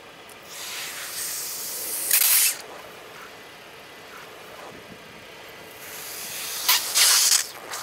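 Car tyre crushing soft liquid-filled toy balls, which burst and squirt their liquid out with a spraying hiss, twice: once peaking about two seconds in and again near the end.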